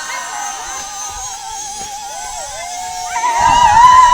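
Singing: a single high voice holds a wavering note, then many voices come in loudly just past three seconds in.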